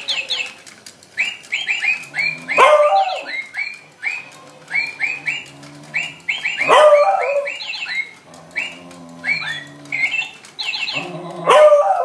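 A toy parrot giving rapid high chirps throughout, and a beagle answering with three loud bays that fall in pitch, about a quarter of the way in, just past halfway, and near the end.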